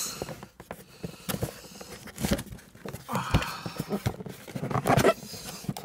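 A cardboard shipping box being handled and tipped: irregular scraping, rubbing and light knocks of cardboard, with louder scuffs about two, three and five seconds in.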